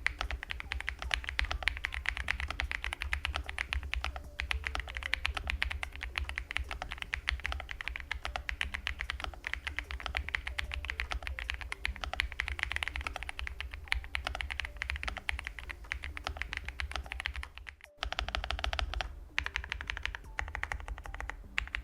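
Fast typing on an Ajazz AK820 Max gasket-mounted 75% mechanical keyboard: a dense, steady run of keystroke clicks. It breaks off for a moment near the end, then the typing carries on.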